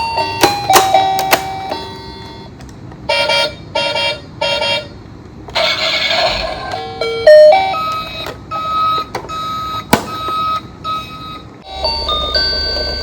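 Electronic sound chips of toy emergency vehicles playing beeping tone sequences and short jingles in stepped notes, with sharp clicks between them, a brief hiss about six seconds in, and a new tune starting near the end.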